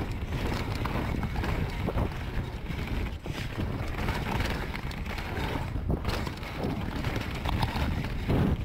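Wind buffeting the camera microphone as a Commencal Meta Power 29 electric mountain bike rolls down a rough, stony dirt singletrack. The tyres crunch over the trail, and the bike rattles and knocks irregularly over the bumps.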